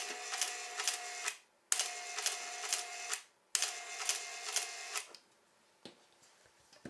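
Three bursts of a small mechanism whirring, each with rapid clicks about three a second; it stops about five seconds in.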